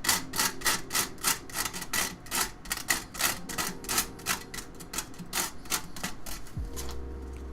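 Rough sandpaper rubbed by hand against a PC case in quick, even back-and-forth strokes, about three to four a second, stopping about a second before the end.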